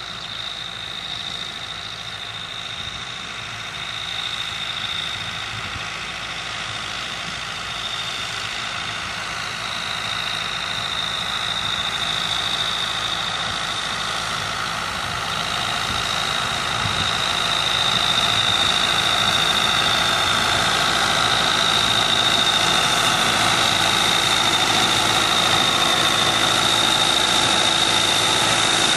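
Ford farm tractor's diesel engine running steadily, pulling and driving a Fransgård SV-250SE swath turner as it picks up and turns straw. A steady high whine sits over the engine, and the machinery grows gradually louder as it comes closer.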